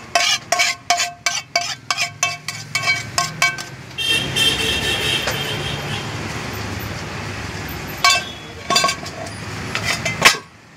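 A metal spatula knocking against a cooking pan in quick, ringing clinks, about four a second, as noodles are tapped out of it; more clinks come near the end. A brief high tone sounds in between, over a steady hum of street traffic.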